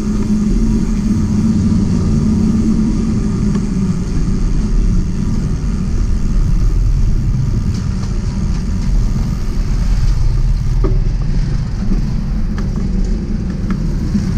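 Steady low rumble of a mountain bike rolling along a concrete street, with wind on the microphone of the bike-mounted camera. Motorcycle and tricycle engines mix in.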